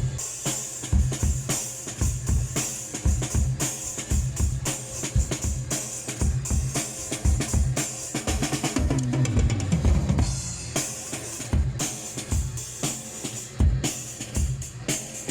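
Drum kit played live, with bass drum and snare hits in a steady pattern and cymbals over them.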